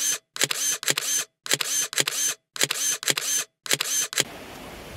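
Camera shutter sound effect: quick bursts of shutter clicks, about one burst a second, each followed by a moment of dead silence, stopping about four seconds in.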